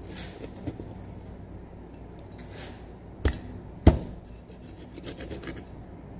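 Knife scraping along a fish on a wooden chopping board, then two sharp chops of a meat cleaver into the board a little over three seconds in, the second louder, followed by lighter scraping strokes.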